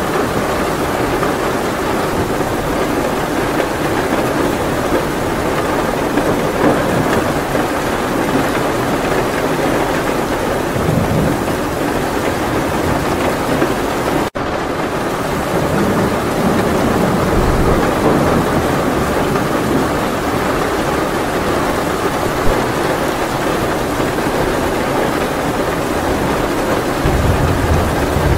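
Steady heavy rain, with low thunder rumbling now and then. The sound cuts out for a split second about halfway through.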